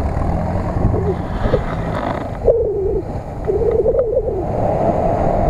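Toyota Tundra pickup's engine running under load in deep marsh mud, with a wavering whine that rises and falls in two stretches past the middle as the revs and spinning wheels work against the mud.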